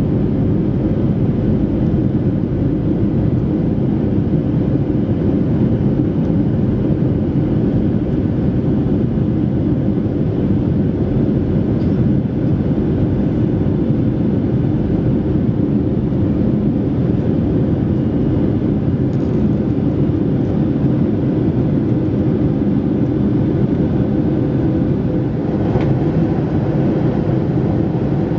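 Steady cabin noise inside a Boeing 737-500 in flight: the low rumble of its CFM56-3 turbofan engines and airflow over the fuselage, with a faint steady hum. A faint click near the end.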